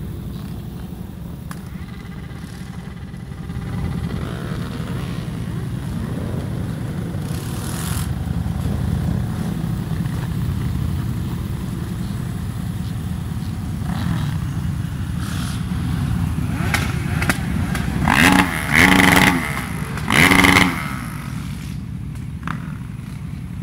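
Cruiser motorcycle engine running steadily along with other motorcycles, with wind rush. Near the end come three short, loud, pitched blasts.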